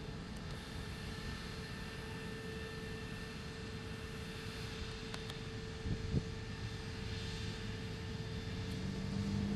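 A mobile crane's engine running steadily as it holds a load on its hook: a low rumble with a constant tone over it. A couple of short knocks sound about six seconds in.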